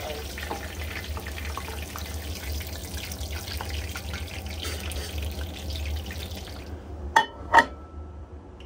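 Pork cutlets deep-frying in hot oil in a cast-iron pan: a steady sizzle with small crackles and pops. The sizzle cuts off about two-thirds through, followed by two sharp clacks about half a second apart at the microwave.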